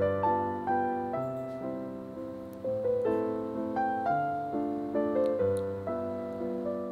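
Background piano music: a slow, gentle melody of single notes over soft chords, each note struck and left to fade.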